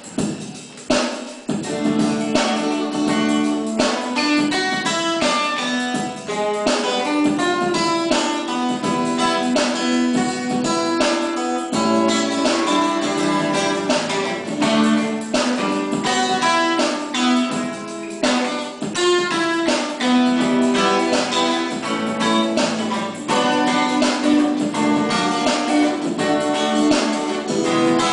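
Twelve-string acoustic guitar played solo, chords strummed and picked in a steady rhythm.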